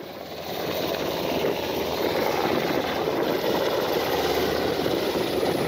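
Aircraft noise from airfield video played over loudspeakers: a steady rushing drone that swells over the first second or two and then holds.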